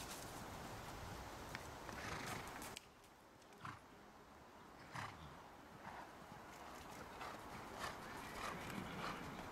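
Soft hoofbeats of a horse moving on a sand arena, over steady outdoor noise that drops away suddenly about three seconds in. After that the thuds come roughly once a second.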